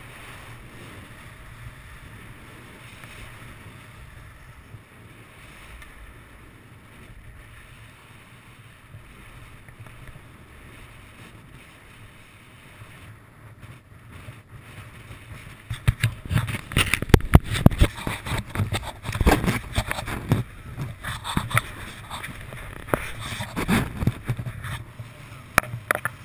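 Skis running on snow with wind on a body-worn camera's microphone: a steady rush at first, then from about two-thirds of the way through, loud irregular scraping and knocks of the skis on the snow as the skier slows.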